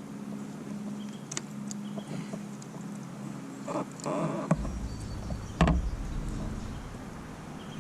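Handling noises on a fishing kayak while a hooked smallmouth bass is landed: scattered clicks, a short rustling splash about four seconds in and one sharp knock just before six seconds, over a steady low hum.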